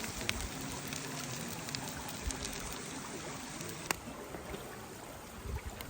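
Steady running water, like a stream trickling, with a few sharp clicks, the strongest about four seconds in.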